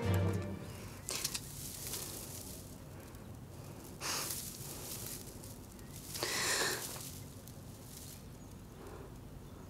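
Film music fading out, then a quiet background broken by three short, hissing noises, about one, four and six seconds in.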